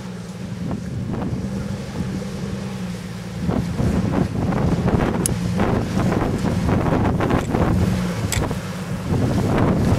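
Jeep Wrangler engine running at low revs as it crawls up a granite rock slope, with wind buffeting the microphone. It grows louder about three and a half seconds in as the Jeep climbs closer.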